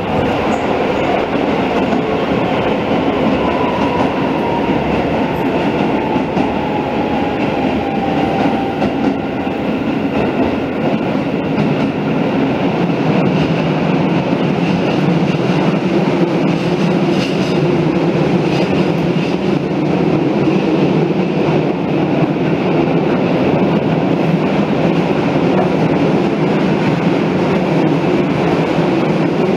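Keisei 3500 series electric train running, heard from inside the carriage as it enters a tunnel: the running noise of wheels and motors jumps louder at the tunnel mouth and then stays a steady, dense noise. A faint tone glides slowly down during the first several seconds.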